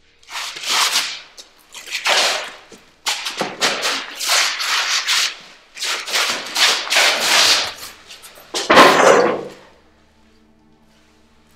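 A string of loud hissing bursts of noise, each up to about a second long with short gaps between them. The last burst is the loudest and fullest, and the bursts stop near the end.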